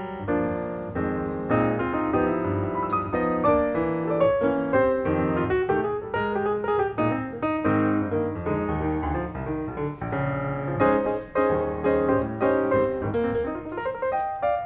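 Background piano music, a steady flow of many quick notes.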